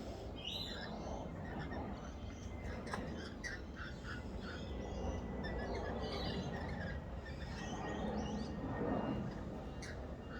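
Birds chirping and calling, many short chirps scattered through, over a steady low background rumble.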